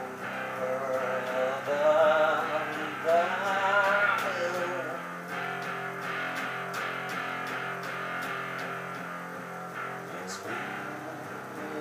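Electric guitar playing over steady low sustained notes, with wavering vibrato notes in the first few seconds and faint regular ticks.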